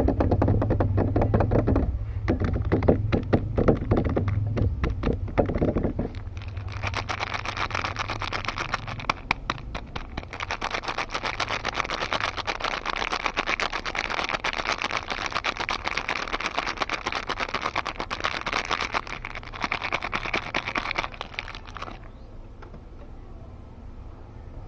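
Soap packaging being handled and unwrapped: duller rustling and handling at first, then a long, dense crinkling and crackling of wrapper material that stops a couple of seconds before the end.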